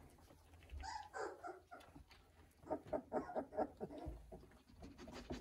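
18-day-old Weimaraner puppies calling in small high voices: a few squeaks and whines, then about three seconds in a quick run of six or so short yelps, the loudest part. The puppies are at the age of just finding their voice.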